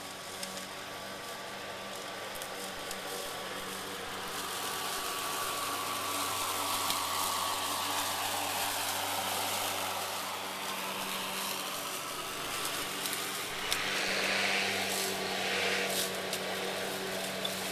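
Greenworks 80V brushless battery lawn mower running as it cuts tall, thick grass: a steady motor-and-blade hum with several fixed tones under an even hiss, a little louder and brighter near the end.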